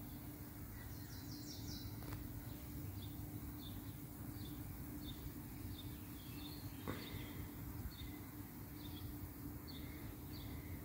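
Quiet outdoor ambience: short high chirps repeating about every half second, a brief higher trill about a second in, and a faint steady low hum underneath.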